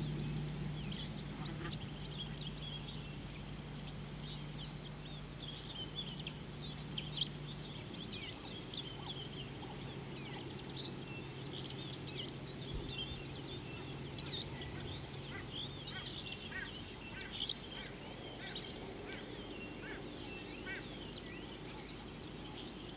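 Many birds chirping and whistling together in short, overlapping calls, with a low steady hum under them that fades out about two-thirds of the way through.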